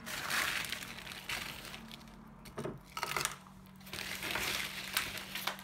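Plastic bag of crushed ice crinkling as a hand scoops ice out, with ice pieces clinking and dropping into a glass of smoothie in a few sharp clicks.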